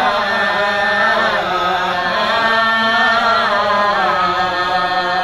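A man's solo voice chanting hikayat verse in the Sasak nembang style, with long held notes whose pitch wavers in ornaments and bends.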